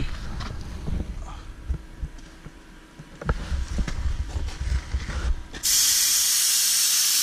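Wind buffeting the microphone, with scattered knocks. A little over five seconds in, a loud, steady hiss cuts in abruptly.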